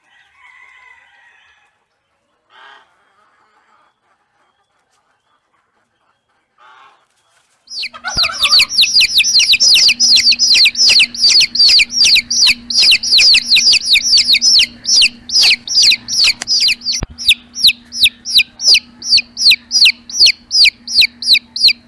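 Chickens calling: a few faint clucks, then from about eight seconds in a loud, rapid run of short, high, downward-sliding calls, about three a second, over a low steady hum.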